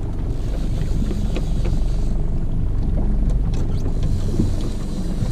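Boat engine running steadily under way, with wind and water noise and a few faint clicks.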